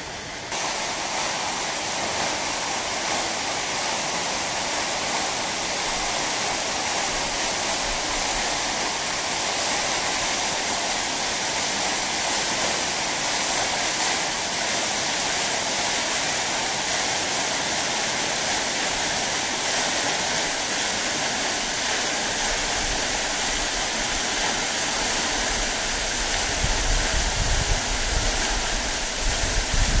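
Waterfall rushing: a steady, dense roar of falling water. Irregular low rumbles come in near the end.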